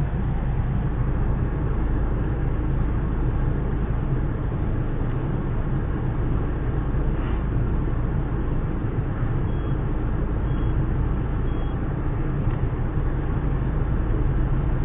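Citroën C5's 2.0 HDi four-cylinder turbodiesel idling steadily with the car at a standstill, heard from inside the cabin, with diesel fuel mixed into its crankcase oil as a decoking flush. About two-thirds of the way through come three faint short beeps about a second apart, from the dashboard's seatbelt reminder.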